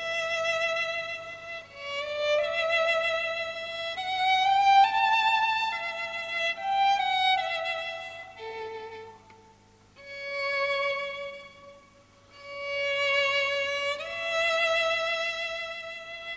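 A violin playing a slow melody of long notes with vibrato, breaking off briefly twice in the second half.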